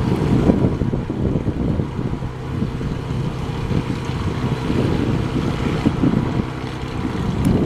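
Wind buffeting the microphone over the steady drone of a light aircraft engine running.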